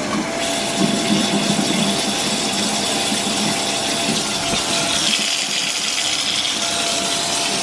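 Shower running steadily, with a faint thin whistle in it, the water spraying into a tub whose drain has just been cleared with a plunger and is now draining.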